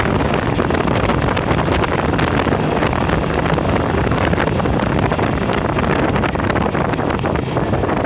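Wind buffeting the microphone over the running noise of a moving vehicle, loud and steady throughout.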